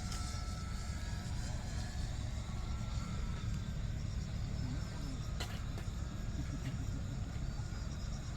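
Steady low wind rumble on the microphone, with the faint whine of an RC model Cessna 182's motor and propeller fading out within the first second or two. A single sharp click about five seconds in.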